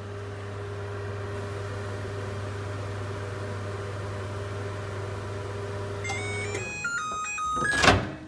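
LG microwave oven running with a steady low hum. As it finishes, about six seconds in, a short run of electronic beep tones at changing pitches sounds, then the door is popped open with a loud clack near the end.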